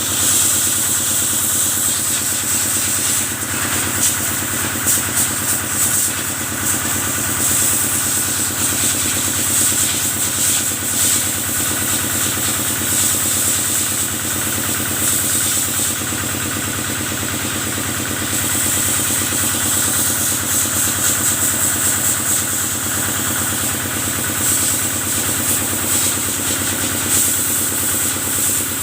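Kubota single-cylinder diesel engine running steadily, driving a pump, with the continuous high hiss of the water jet spraying the cattle.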